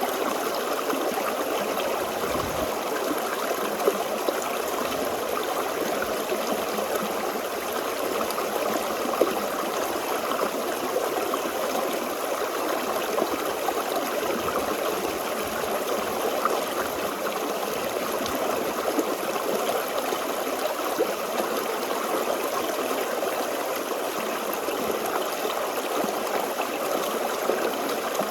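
Forest stream flowing over rocks, a steady babble and gurgle with small splashes.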